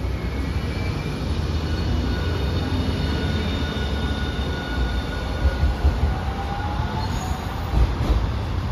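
Hiroshima Electric Railway streetcar running on street track: a steady low rumble with thin, high wheel squeal tones over it, and a faint rising whine about six seconds in.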